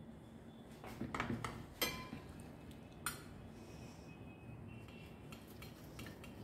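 Stainless steel hand grater knocking and clinking against a ceramic plate several times as it is set down, followed by faint scraping as a hard-boiled egg is grated.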